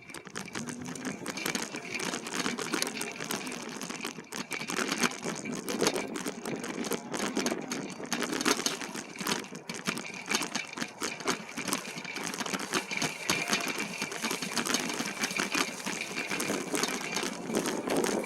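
E-bike ridden over a rough, bumpy trail: a continuous fast rattling and clicking of the bike and its load, with a steady high whine running under it.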